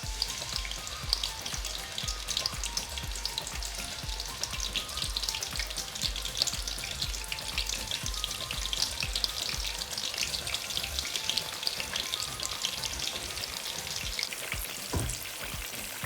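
Yoghurt-marinated lamb chops frying in olive oil in a pan, a steady dense crackling sizzle. A single low thump near the end.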